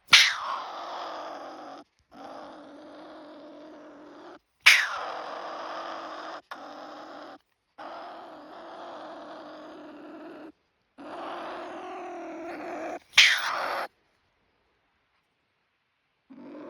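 An angry American pine marten in a live cage trap growling in long rough stretches, broken by short pauses, with three sudden loud outbursts: near the start, about five seconds in and about thirteen seconds in.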